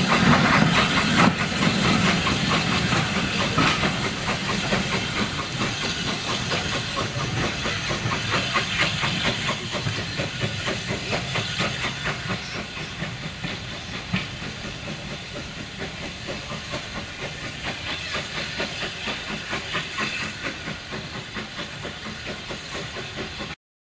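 Steam locomotive hauling a train away: a loud hiss of steam as it passes close, then its exhaust beats in a steady rhythm, fading as the train recedes. The sound cuts off suddenly near the end.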